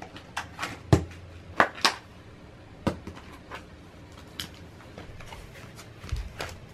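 Scattered sharp plastic clicks and taps, about a dozen spread irregularly, from plastic slime capsules being pushed out of their blister pack and set down on a mat. There is a dull thud near the end.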